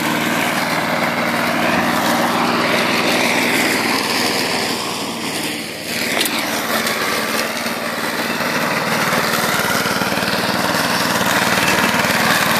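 Remote-controlled lawn mower's small petrol engine running steadily under load as it cuts long grass, dipping briefly in level about halfway through and then coming back up.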